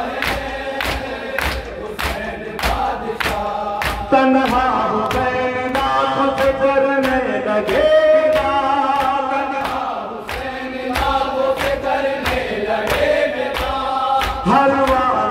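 A noha chanted by men's voices in unison, with a steady beat of open-hand chest-beating (matam) at roughly two to three strokes a second.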